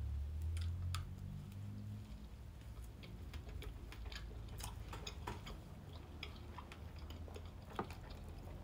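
Close, faint chewing of a soft crepe filled with strawberry chunks and chocolate, with scattered small clicks from the mouth. A low hum sits under the first second or two.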